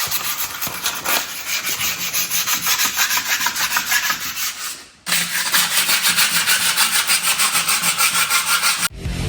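Hand sanding: sandpaper scrubbed back and forth in quick, even strokes, about four a second, in two stretches with a brief break near the middle.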